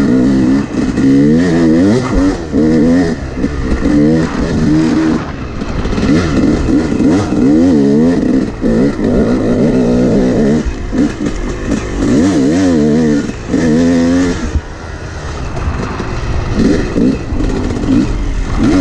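Yamaha 250 two-stroke dirt bike engine being ridden hard, revving up and down again and again as the throttle is opened and closed, the pitch rising and falling with each burst. It eases to a lower, steadier note for a moment about 15 seconds in, then picks up again.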